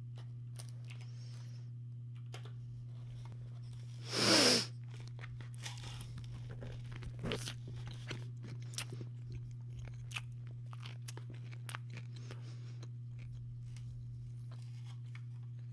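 A person eating a sandwich: one loud bite with a crunch about four seconds in, then chewing with many small scattered crunches. A steady low electrical hum runs underneath.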